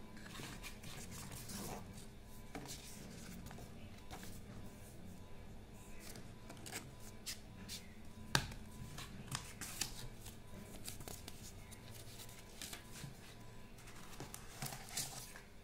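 Cardboard box and clear plastic packaging handled by hand: irregular rustling, scraping and clicks, with one sharper click a little past the middle.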